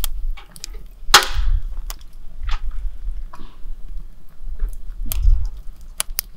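Wood campfire crackling and popping with irregular sharp snaps, and a louder clank about a second in as a wire grilling basket is set down on the steel fire-pit grate.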